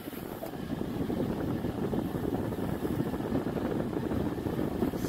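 Steady low rushing noise inside the cabin of a switched-on car, growing slightly louder about a second in.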